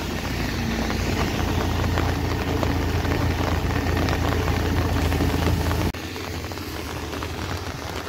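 Two-wheeler riding on a rain-wet highway: a steady engine rumble with wind and tyre hiss, which gives way abruptly about six seconds in to an even hiss of rain falling on the ground.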